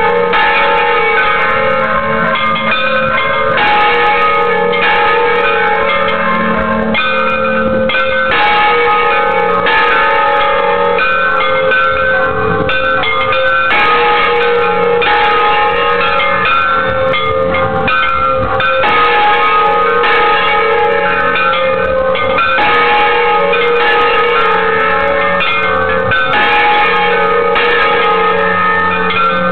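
Festive repique of church bells heard close up from inside the belfry: several bells struck in quick, continuous rhythm, their loud overlapping tones ringing on without a break.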